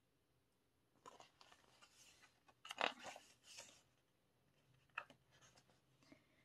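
Faint handling of a photobook's paper pages: a few soft rustles and taps as pages are touched and turned.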